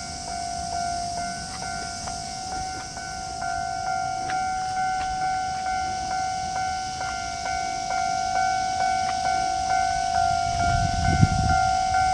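Japanese level-crossing warning bell ringing in an even rhythm, about two strikes a second, getting slightly louder; it signals that a train is approaching and the crossing is closed. A brief low rumble with a knock comes near the end.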